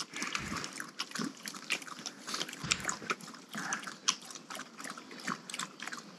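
Dog lapping water from a bowl: a quick, irregular run of small wet clicks and splashes, several a second.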